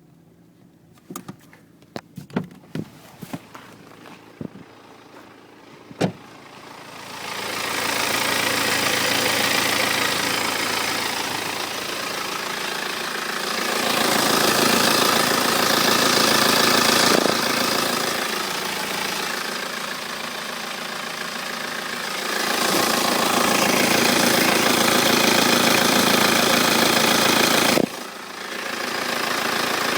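A few sharp clicks and knocks, then a 2008 BMW 318d's four-cylinder N47 diesel engine starts about seven seconds in and runs, revved up and settling back twice, with a sudden brief dip near the end. The engine carries a strange 'flflflf' noise that grows when revved; it was cured by replacing the timing chain and tensioners, so it is the sign of a worn timing chain.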